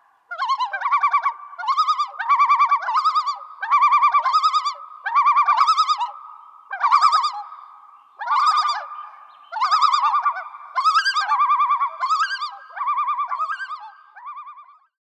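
Common loon tremolo calls: about ten quavering, laughing phrases in a row, the last ones fainter.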